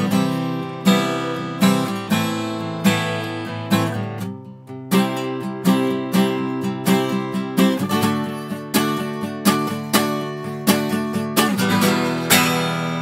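Acoustic guitar strummed in a steady rhythm, closing on a final chord near the end that is left to ring out.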